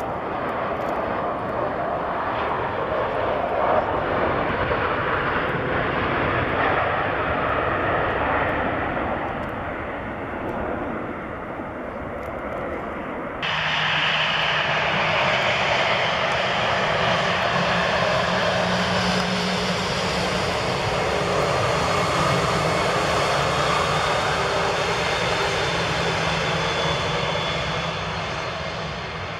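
Jet engines of a Boeing 737-600 landing. About 13 seconds in, an abrupt cut brings in an Airbus A320's jet engines running steadily with a low hum as it taxis.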